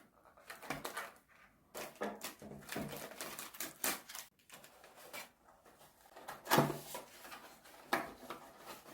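Irregular clicks, knocks and clatter of takeout food containers and packaging being handled and set out on a table, loudest about two-thirds of the way through.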